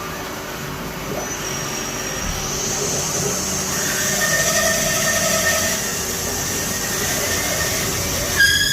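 CNC machine running and cutting: a steady mechanical noise with high whining tones that come and go. A sharp, loud squeal sets in suddenly near the end.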